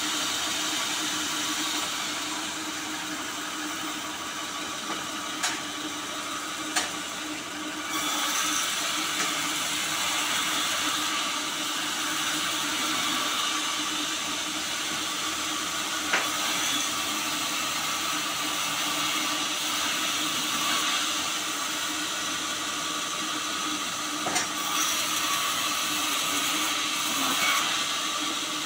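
A large vertical band saw running, its blade hissing steadily through sonokeling (Indian rosewood) logs as they are ripped lengthwise, over a low hum. It gets louder about eight seconds in, and a few sharp knocks stand out.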